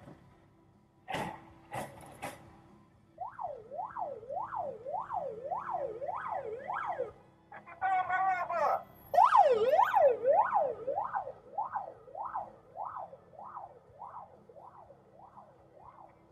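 Emergency-vehicle siren, most likely police, wailing up and down fast, about two sweeps a second. It grows loudest about halfway through and then fades. Two short knocks come in the first two seconds, and a short harsh horn-like blast sounds about eight seconds in.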